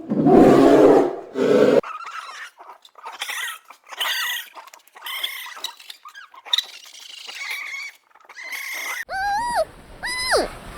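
Animal calls from several clips in turn: a loud, deep roar that cuts off suddenly about two seconds in, then a run of short, thin, high-pitched calls, and near the end a few clear calls that rise and fall in pitch.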